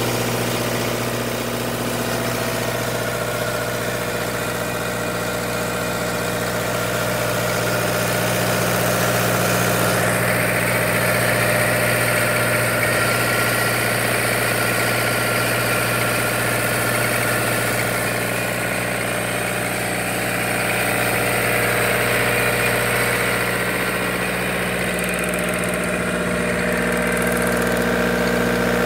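Engine of a trailer-mounted generator set running steadily at a constant speed, a continuous hum that holds one pitch.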